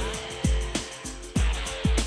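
Background music with a deep, booming kick drum beating in a syncopated pattern over a held note.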